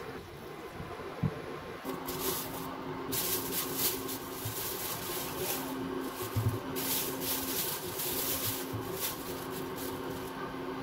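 Thin plastic bag crinkling and rustling in repeated bursts as fruit is handled, with a few soft thuds and a steady low hum underneath.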